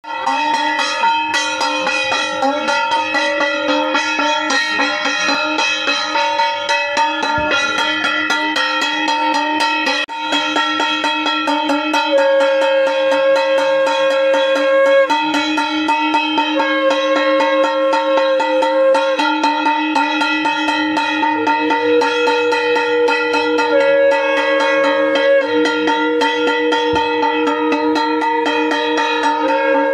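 Music: a melody of held notes over a fast, even ticking pulse, without singing.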